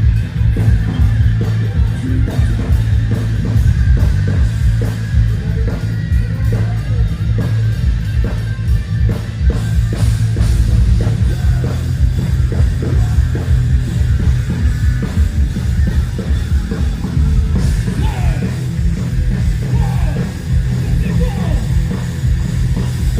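Loud heavy rock band playing live during a sound check: pounding drums under amplified instruments, with some gliding notes late on.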